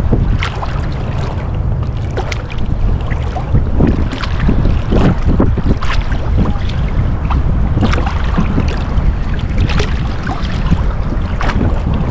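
Wind rumbling on the microphone over open water, with water lapping and short, irregular knocks and splashes around a float tube.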